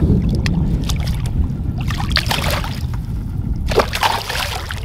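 Two smallmouth bass splashing back into the lake as they are released over the side of a boat, one splash about two seconds in and another near the end, over a steady low wind rumble on the microphone.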